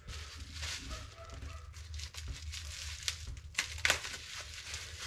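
Rustling and crinkling handling noise with scattered light clicks, two sharper ones a little past halfway, over a steady low hum.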